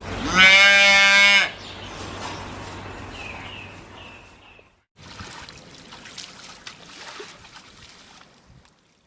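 A single loud bleat from a farm animal, lasting about a second, with a pitch that rises at the onset and then holds. Quieter outdoor background follows with a few faint high chirps. After a sudden cut comes another stretch of faint background with scattered small clicks.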